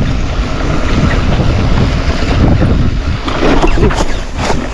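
Wind buffeting the microphone over the rumble and rattle of a full-suspension mountain bike riding a dirt trail, with scattered knocks as the wheels hit bumps.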